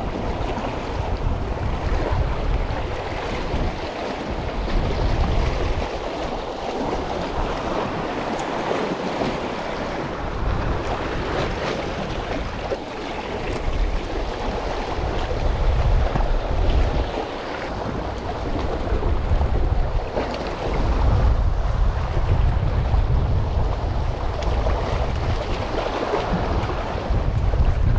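Sea waves washing and splashing among concrete breakwater tetrapods, with gusts of wind buffeting the microphone in uneven low rumbles.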